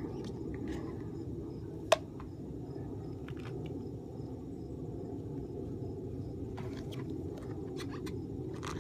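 Outdoor background with a steady low rumble and a faint, evenly pulsing insect chirp high up, under soft rustles and taps of gloved hands handling a plastic cup and tub. A single sharp click about two seconds in.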